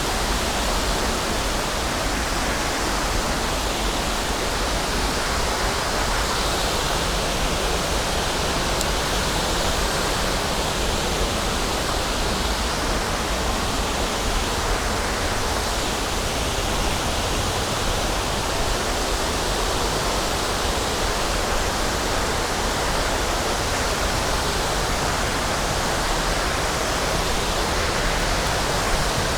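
Waterfall on Brasstown Creek: a steady, loud rush of falling water.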